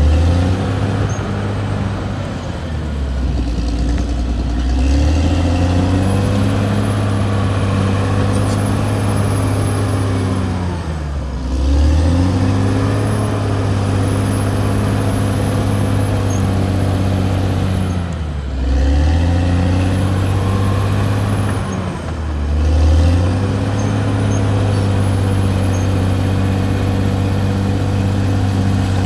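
Caterpillar D6R XL bulldozer's diesel engine running hard, its pitch dipping and recovering three times as the load or direction changes. A high whine rises and falls along with it.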